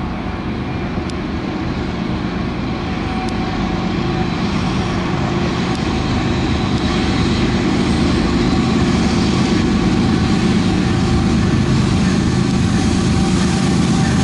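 Diesel freight locomotives approaching and passing at speed, led by Norfolk Southern's Southern Heritage GE ES44AC with a C44-9W trailing: a steady engine rumble with wheel and rail noise that grows louder as the train nears.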